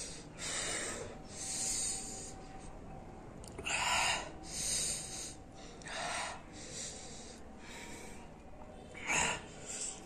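A man breathing hard and hissing through an open mouth, a string of loud sharp breaths about every second or so: the burning from a just-eaten Carolina Reaper chili.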